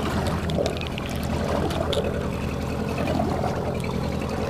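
Boat motor running steadily, with water splashing and rushing against the hull, and a few light clicks in the first two seconds.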